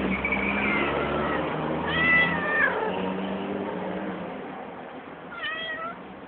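Domestic cat meowing three times: a call running on at the start, a longer one about two seconds in that drops in pitch at its end, and a shorter one near the end.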